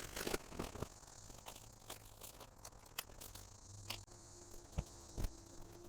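Scattered soft knocks and rustles as a foam yoga mat is handled and laid out, over a steady high chirring of insects. A faint low hum comes in about four seconds in.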